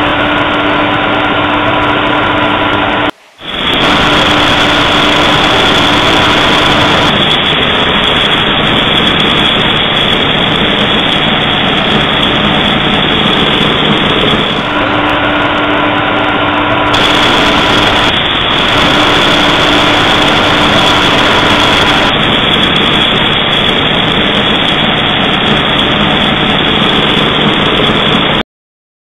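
Cryogenic pulverizer plant running: a loud, steady mechanical rush with several steady hum tones that come and go at the cuts. There is a brief drop-out about three seconds in, and the sound cuts off suddenly near the end.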